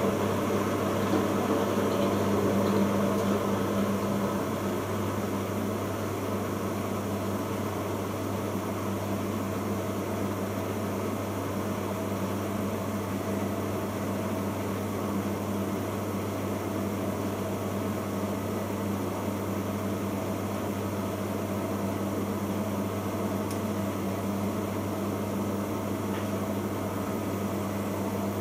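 Bosch Logixx washing machine in its 1000 rpm interim spin: a steady motor hum and whirr of the spinning drum, dropping a little in level about four seconds in.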